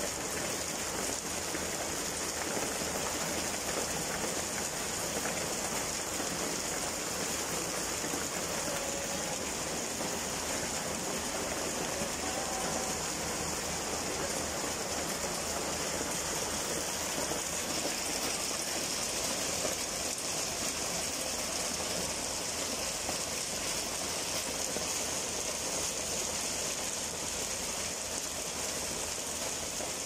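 Small icy pellets falling thickly on a concrete rooftop, a steady dense hiss of countless tiny hits that does not let up.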